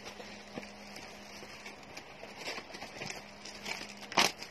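Handling noise from a phone being moved while filming: small rustles and taps over a faint steady hum, with one sharp knock about four seconds in.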